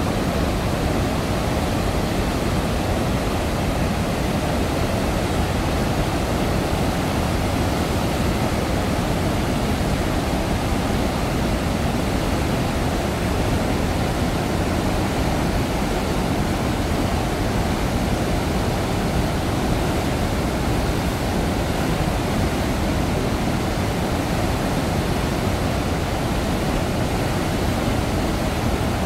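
Floodwater pouring through open dam spillway gates and churning below them in a flood release: a steady, low roar of rushing water.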